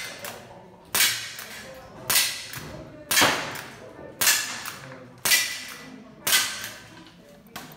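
CO2 lever-action rifle fired at steel plate targets in a steady string, about one shot a second, seven or eight shots in all. Each sharp pop trails off in a short ring.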